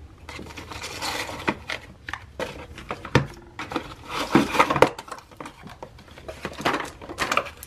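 Handling noise of Dyson Airwrap attachments and their storage case: rustling and scraping with scattered clicks and knocks, and one sharper knock about three seconds in.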